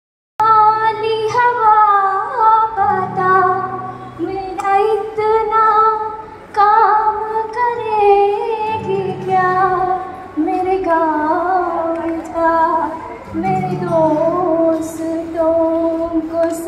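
A girl singing a melody solo into a microphone, amplified through a PA, with sliding, ornamented notes. An acoustic guitar plays chords underneath that come and go.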